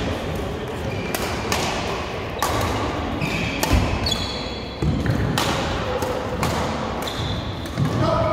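Badminton rackets striking shuttlecocks in rallies on several courts: a steady stream of sharp cracks, often less than a second apart. Short high shoe squeaks on the court mats and a few heavy footfall thuds, the loudest about four seconds in, are mixed in.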